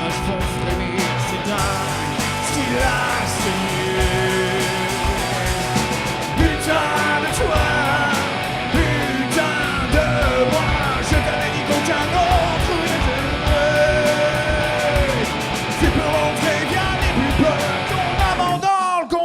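Rock band playing at full volume: drums and electric guitars under a sliding, bending melody line. The bass and drums drop out near the end.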